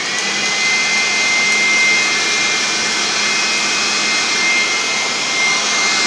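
PROMAKER PRO-SP400 400 W electric blower vacuum running at full speed in vacuum mode with its collection bag fitted, picking up wood shavings. A steady rush of air carries a high fan whine that climbs as the motor comes up to speed at the start, then holds one pitch.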